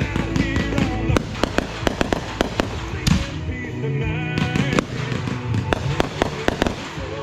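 Backyard consumer fireworks going off in a rapid run of sharp bangs and crackles, with music playing underneath.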